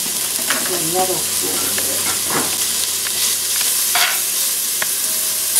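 Diced raw bacon sizzling in a hot cast iron Dutch oven with no added fat, rendering its own fat, in a steady hiss. A utensil scrapes and clicks against the pot bottom several times as the pieces are stirred.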